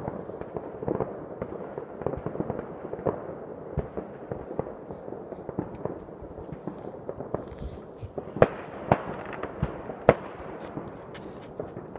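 Many fireworks and firecrackers going off at once: a continuous rumble of overlapping distant bangs and crackles, with a few sharp, louder bangs in the second half.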